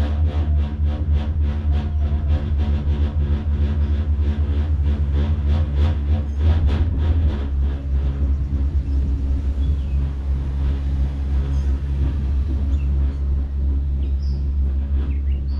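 Steady low mechanical rumble with a fast rattle of clicks, about four a second, that dies away about halfway through.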